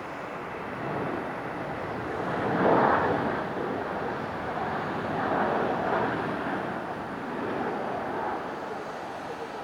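Jet engines of a Boeing 737-800 airliner, a steady rushing roar that swells loudest about three seconds in and again around halfway.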